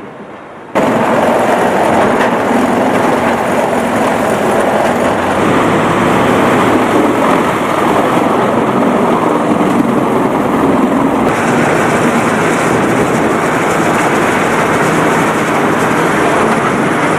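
Large industrial grinder running at full load, a loud, dense grinding and crushing noise. Its character changes abruptly twice, about five and eleven seconds in.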